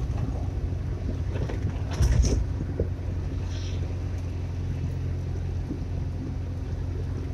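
Steady low engine and road noise of a car driving, heard from inside the cabin, with one brief louder thump about two seconds in.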